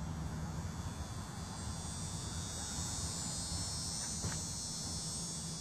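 Steady high-pitched chorus of insects, a little louder in the middle, over a low steady hum.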